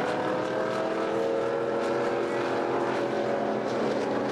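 Late model stock cars' V8 engines running at racing speed around the oval: a steady loud engine drone whose pitch falls slowly.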